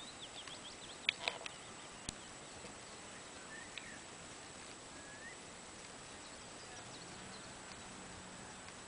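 Quiet open-field ambience with a few sharp clicks in the first two seconds and scattered faint short chirps.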